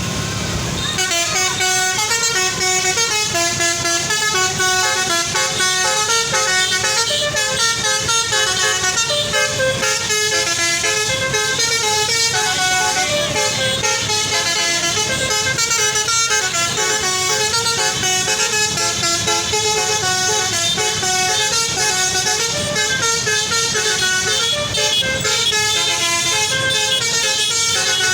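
Bus's basuri (telolet) multi-trumpet air horn playing a tune. Its several pitches step from note to note without a break, over the low noise of the bus on the road.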